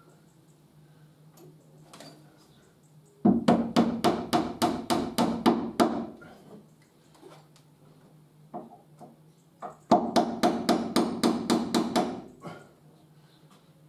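Hammer blows on timber in two quick runs of about a dozen even strikes each, around five a second, the first starting about three seconds in and the second about ten seconds in.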